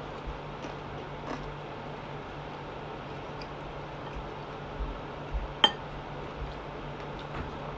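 Fried chicken being pulled apart by hand over a plate, with faint crackling and small clicks and one sharp clink about five and a half seconds in, over a steady low hum.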